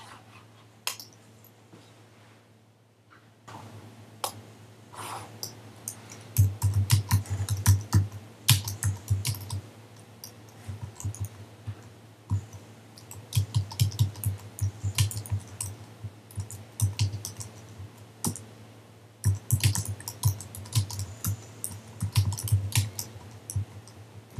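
Typing on a computer keyboard: quick, irregular key clicks that start a few seconds in and run on in dense runs, with a short pause about three quarters of the way through.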